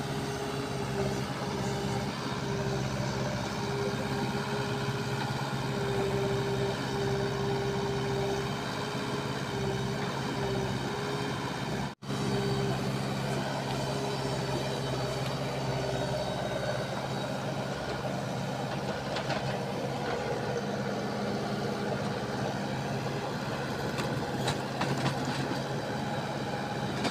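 Diesel engine of a Manitou backhoe loader running steadily under load while the machine is stuck in deep mud and working its bucket and arm to free itself.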